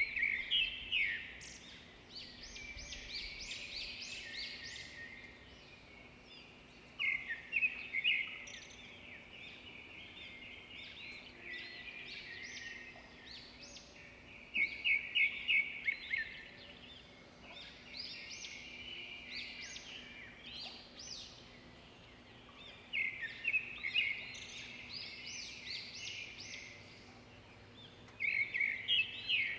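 Birds chirping: rapid runs of short, high chirps that swell into a loud burst every seven seconds or so, over a faint steady hum.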